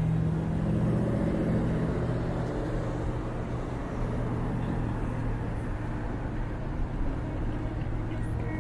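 A vehicle engine running steadily with a low hum, a little louder at the start, over outdoor background noise.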